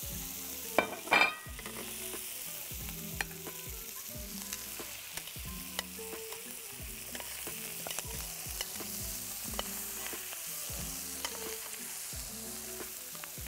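Chicken breasts sizzling steadily in a hot frying pan after lemon juice has been added, with metal tongs clicking against the pan as pieces are lifted out. Two louder clinks come about a second in.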